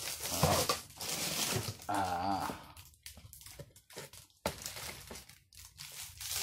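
Clear plastic wrap and cardboard packaging being handled while a kitchen slicer is unpacked: crinkling and rustling, then scattered crackles with a sharp click about four and a half seconds in.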